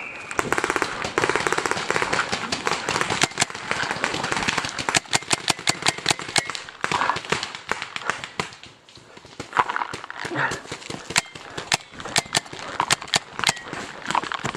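Paintball markers firing in a skirmish: a dense, irregular stream of sharp pops, some close and loud, others fainter.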